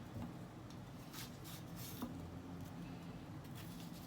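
Kitchen knife on a cutting board among cut green chilies: a few soft, scattered clicks and taps over a low steady hum.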